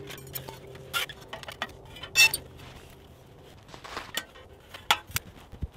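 Metal camping gear clinking and knocking as it is handled and set down: a scattering of light clinks, the loudest about two seconds in with a brief ring.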